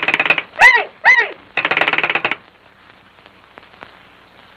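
A wall crank telephone's bell rings in two short, fast rattling bursts of well under a second each as its handle is cranked. Between the bursts come two short, high-pitched falling calls in Mickey Mouse's cartoon voice.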